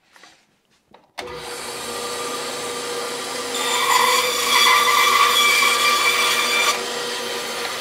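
A band saw switched on about a second in and running steadily. From about the middle it cuts through a piece of cottonwood bark, louder and harsher while the blade is in the wood, then runs free again near the end once the block is off.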